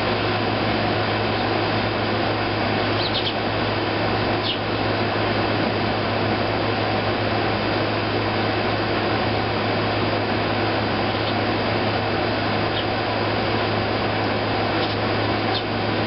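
Air conditioner running with a steady whir and an even low hum. A few faint, short sparrow chirps come through over it now and then.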